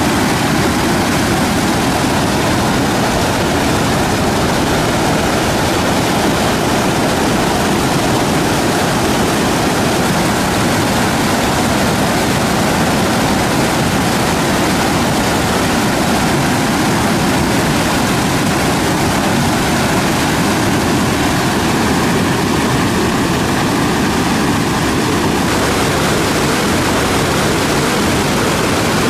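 Loud, steady rush of whitewater pouring over rock at the head of a waterfall.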